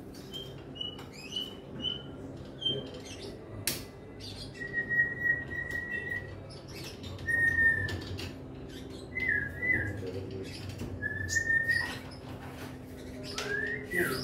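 High whistled notes: a few short chirps near the start, then several clear notes held for about a second each, with a few quick warbles. Sharp clicks and knocks sound throughout.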